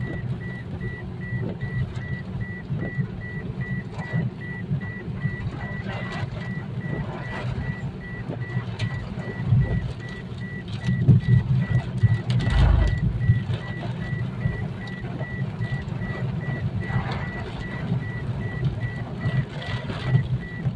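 Storm wind buffeting the microphone in a loud, gusting low rumble that swells strongest about halfway through, with scattered crackles. A fast, evenly pulsing high tone runs under it.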